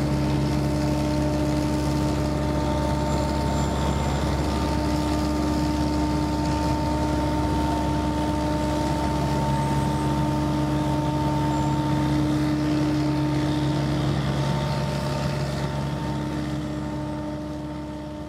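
TYMCO Model 600 regenerative air street sweeper at work, its engine and air blower running steadily with a hum of several steady tones. The sound fades out near the end.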